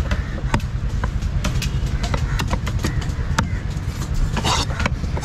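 A large fish-cutting knife chopping and knocking on a wooden log block as fish is cut into steaks: sharp, irregular knocks, one or two a second, over a steady low background rumble.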